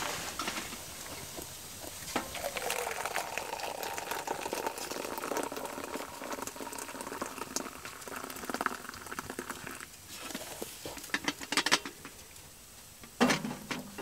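Water heating in a stainless percolator coffee pot on a wood stove, with a steady simmering hiss and bubbling. Near the end come a few metal knocks and one loud clunk as a pot is set on the stovetop.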